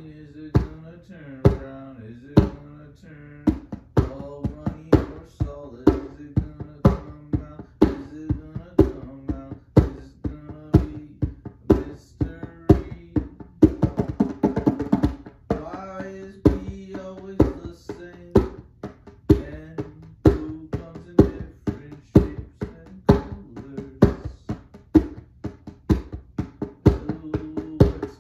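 Djembe played by hand in a steady rhythm, about two strikes a second, over a strummed string instrument holding chords underneath.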